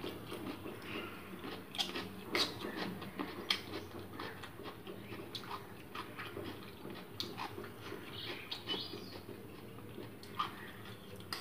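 Close-up eating sounds: chewing of a mouthful of noodles, with irregular clicks and scrapes of a metal fork against a plastic plate.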